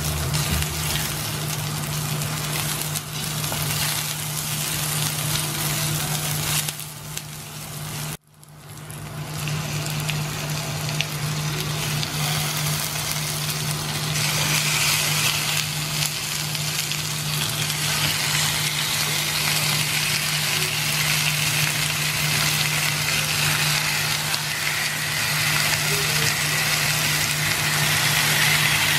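Onion and garlic sizzling as they fry in oil in a pan, over a steady low hum. The sound drops out briefly about eight seconds in, and the sizzle is somewhat brighter in the later part as tomato slices are laid in.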